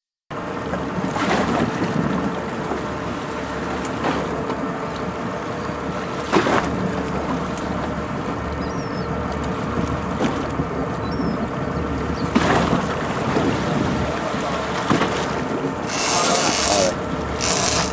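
Boat's engine running steadily under wind noise on the microphone, with a few sudden louder gusts or splashes and a rush of noise near the end.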